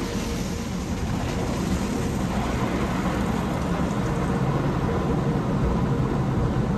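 Tunnel car wash spray of water and foam drenching the car's windshield and roof, a steady heavy rush heard from inside the cabin.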